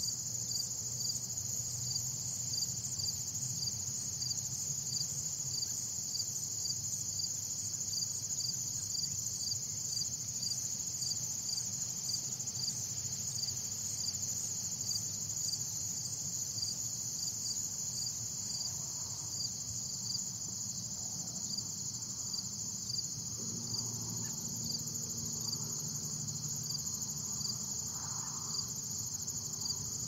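Steady chorus of insects chirping, a continuous high-pitched trill with an even pulse running under it.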